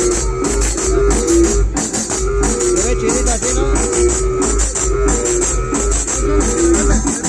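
Loud dance music played over a large sound system, with a heavy pulsing bass beat and a repeating melody line.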